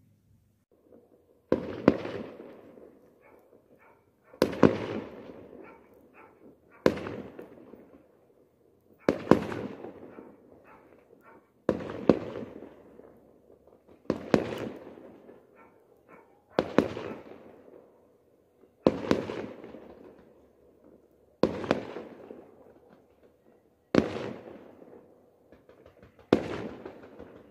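Fireworks going off in a steady series: about eleven loud bangs, one every two and a half seconds or so. Each bang trails off over a second or two.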